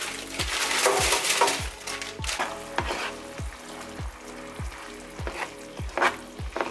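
Food sizzling as it fries in a pan and is stirred, loudest from about half a second to two seconds in, over background music with a deep bass beat.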